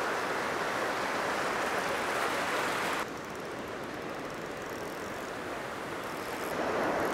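Ocean surf breaking and washing in, a steady rushing wash of water. About three seconds in it cuts to a quieter, steady wash of wind and water.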